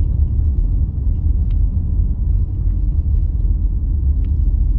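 Car driving along a road, heard from inside the cabin as a steady low rumble of tyres and engine.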